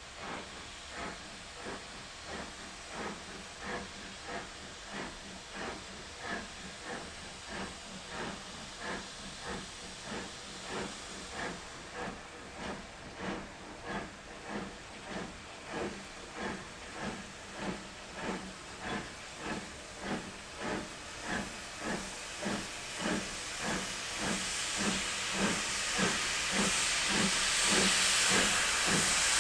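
Steam locomotive working under power, its exhaust beats steady at about two a second and growing louder as it comes closer. A loud hiss of steam builds over the last few seconds.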